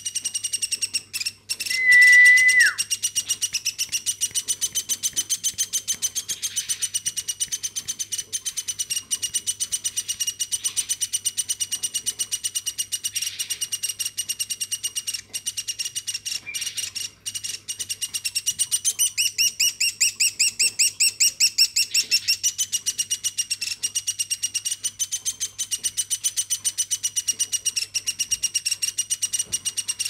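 Woodpecker chick giving a continuous train of high-pitched begging chirps, about four a second, with a run of faster rising notes about two-thirds of the way through. About two seconds in, a loud steady whistle lasts about a second and drops in pitch at its end.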